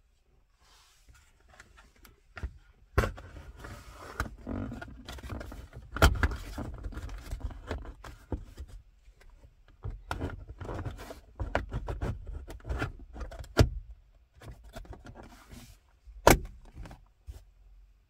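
Hard plastic centre-console cover around a VW Polo Mk4's handbrake lever being worked into place by hand: irregular rattling and scraping of plastic, broken by several sharp clicks as the cover is pushed down and its clips snap home.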